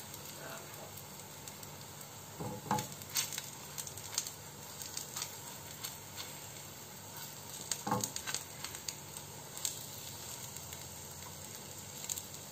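Bread slice coated with semolina batter sizzling steadily on a nonstick tawa over a low gas flame, while a steel spoon spreads batter over its top side with scattered scrapes and light taps, the loudest about two and a half seconds in and again about eight seconds in.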